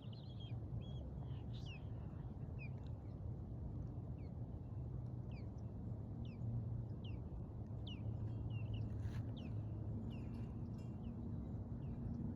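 Wind buffeting the microphone as a steady low rumble, with birds chirping throughout in short, quick high notes about once a second.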